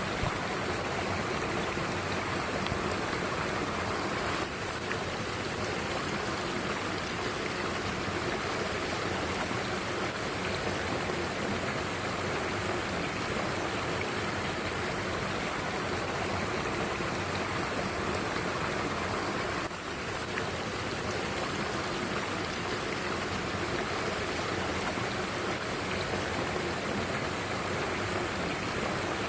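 Mountain stream flowing: a steady rush of water with two brief dips in level, about four seconds in and again near twenty seconds.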